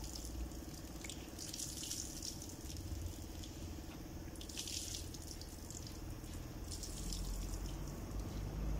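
Fuel draining and dripping from a removed fuel pump assembly onto a concrete floor, splashing in short spells over a steady low hum.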